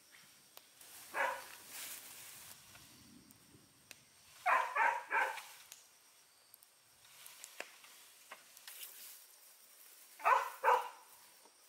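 A dog barking: a single bark, then three in quick succession, then two more near the end, with faint clicks in between.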